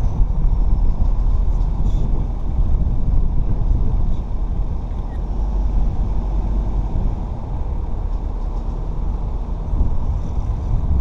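Low, steady rumble of a car driving slowly, heard through wind buffeting a microphone mounted on the car's roof.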